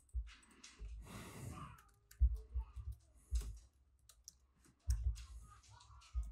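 Typing on a keyboard: faint, scattered key clicks, with a few low thumps in between.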